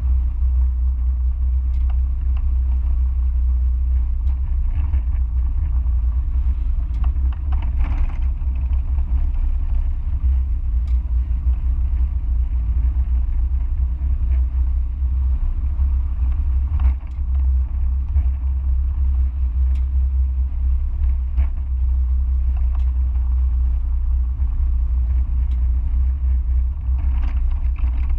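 Mazda MX-5 being driven, heard onboard: a steady low rumble of the running car, with a few faint knocks.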